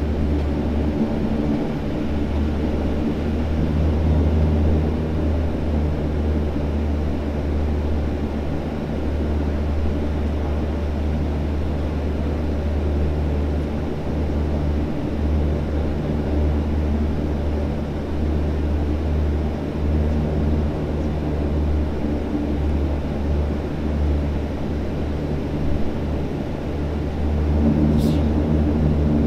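Fokker 50 turboprop engine and propeller running at taxi power, heard from inside the cabin beside the engine: a steady low drone with several steady tones over it, growing a little louder near the end. A faint click near the end.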